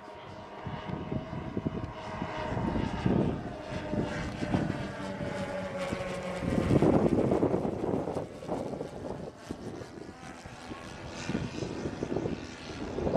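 Engines of a 1/10-scale radio-controlled B-17 model in flight, a steady propeller drone whose pitch falls slowly over the first six seconds. Wind buffets the microphone in gusts, loudest about seven seconds in.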